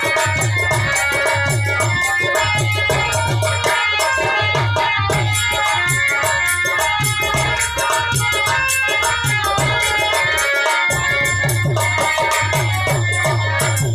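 Indian devotional-style music: harmonium melody over a steady hand-drum beat with a shaker rattle, the drum dropping out for a moment about three-quarters of the way through.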